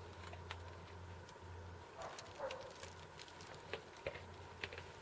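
Faint scattered taps and clicks, about half a dozen, over a low steady hum.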